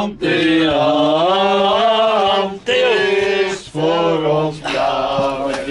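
Male singing in long, drawn-out notes: three loud sung phrases with short breaks between them.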